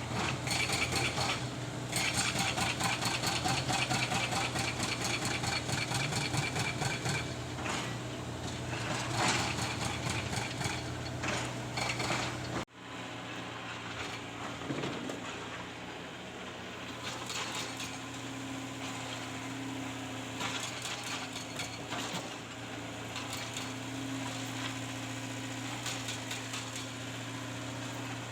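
Excavator engine running steadily, with rapid metallic clattering and clanking through the first half, the sound of work on the steel tracks. After a sudden break a little under halfway through, only the engine hum continues.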